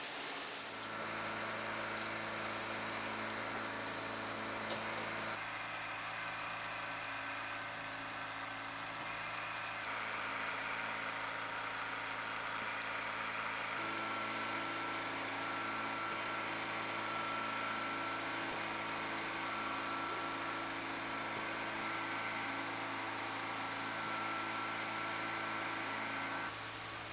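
Sock-factory machines running with a steady electric hum and a high whine. The mix of tones shifts abruptly a few times.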